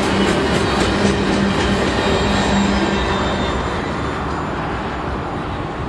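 The last coal hopper cars of a freight train rolling past close by: wheels clicking over the rail joints in the first second, with a steady rumble and hum that ends about three and a half seconds in as the end of the train goes by, and the sound slowly fading.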